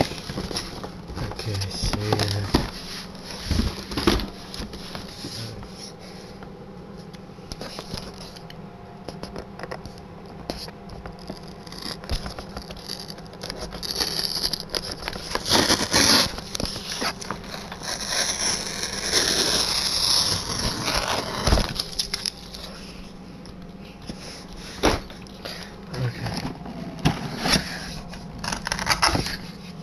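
Cardboard laptop box being handled and opened: irregular knocks and taps of cardboard, with a longer stretch of cardboard sliding and scraping in the middle.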